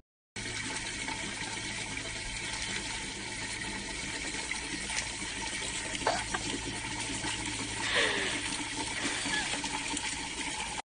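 Water running steadily from an outdoor wall tap in a thin stream, splashing below.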